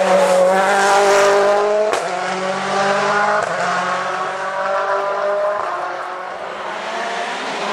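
Ford Fiesta rally car's turbocharged four-cylinder engine accelerating out of a hairpin, its pitch rising through the gears. There is a sharp crack about two seconds in, and the engine note then fades as the car pulls away.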